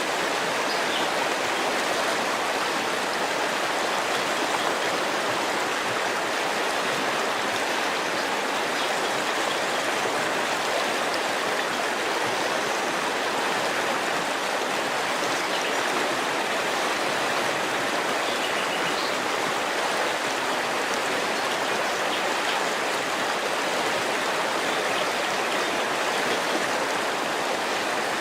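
River water flowing, a steady, unbroken rushing of moving water.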